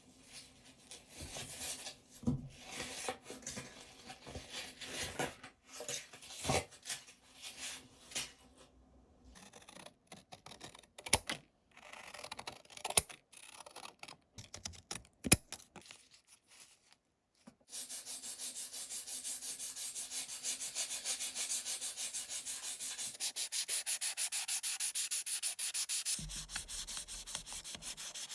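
Rubbing and sanding on a small diecast model part: irregular scrapes and light clicks at first, then from about two-thirds of the way through, fast, even back-and-forth strokes.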